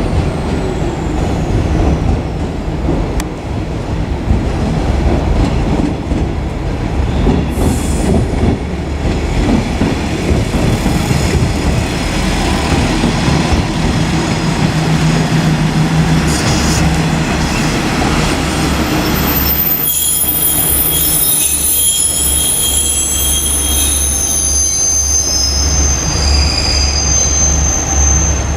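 Two-car JR KiHa 47 diesel railcar set running, its diesel engines giving a steady low rumble. About two-thirds of the way in, high-pitched wheel squeal sets in, several shrill tones at once, as the wheels grind round track curves.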